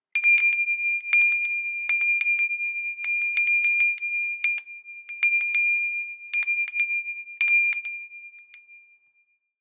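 A small bell rung in short shakes about once a second, several quick strikes each time, one clear high pitch ringing on between the shakes. It fades out near the end.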